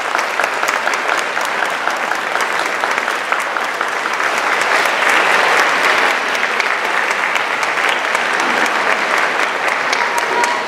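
Audience applauding: dense, steady clapping from many hands that eases off near the end.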